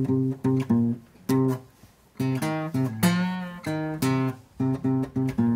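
Fender acoustic guitar playing a blues riff: short strummed chord stabs in a steady rhythm, with one held note that wavers in pitch about three seconds in.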